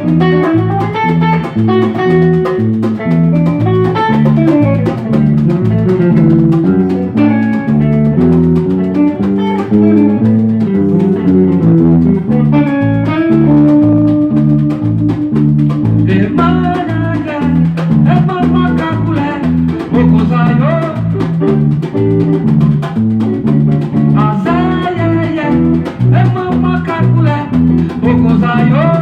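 Instrumental break of an Afro-Brazilian song: an electric bass line moving under a plucked guitar melody, with no singing.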